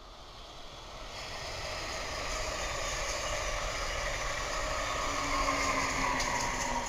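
Amtrak passenger train passing at speed: steel wheels rolling on the rails, the rumble building about a second in and growing steadily louder. A low steady hum joins later, with a few sharp clicks near the end as the ACS-64 electric locomotive at the rear goes by.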